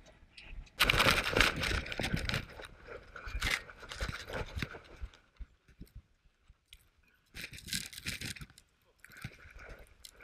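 Rustling and crunching from a dog-mounted action camera and harness as the dog moves over snow, in two spells of a few seconds and about a second, with quieter gaps between.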